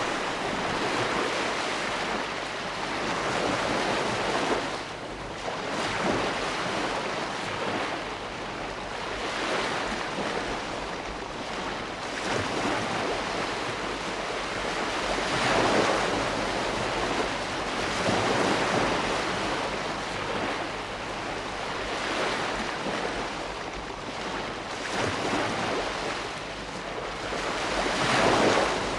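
Ocean waves breaking and washing on the shore, a continuous surf noise that swells and eases every few seconds, with stronger breakers about halfway through and near the end.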